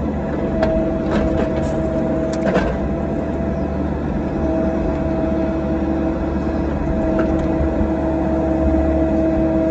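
Excavator diesel engine and hydraulics running steadily with a whine that drops out briefly near the middle. Several sharp knocks in the first few seconds come from the machine working the dirt.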